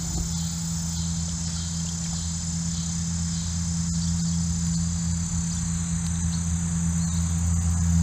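Steady low drone of traffic on the four-lane highway bridge overhead, with a constant high-pitched insect chorus.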